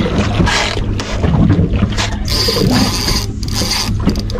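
Small fishing boat's engine running with a steady low hum under wind and water noise, with a brief high steady tone about two seconds in.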